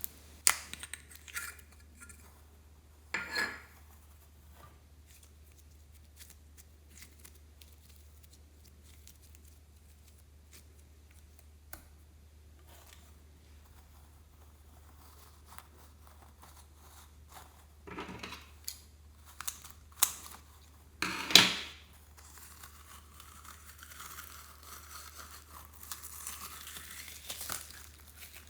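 Intermittent crinkling and crackling handling sounds from slime-making: a short burst about three seconds in, long quiet stretches, then several louder crackling bursts around two-thirds of the way through, followed by softer rustling.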